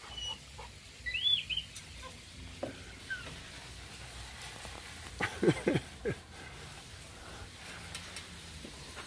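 Animal calls: a short bird chirp about a second in, then a louder, brief call of a few notes at about five and a half seconds, over a low steady background.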